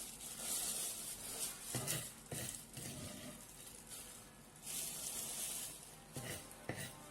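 Thin plastic bag rustling and crinkling in uneven bursts as dried cocoyam pieces are put into it, with a few light knocks.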